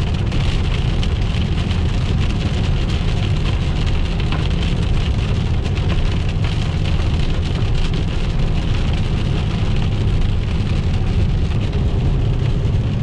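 Rain hitting the windshield and body of a moving car, over a steady low rumble of tyres on wet pavement, heard from inside the cabin.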